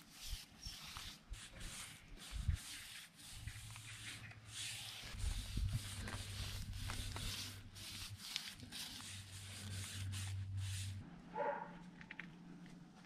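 Tyre-shine applicator rubbing over a motorbike's knobbly tyre, making a soft scrubbing noise that comes in repeated strokes, with a couple of dull knocks. A low steady hum underlies the middle of the stretch.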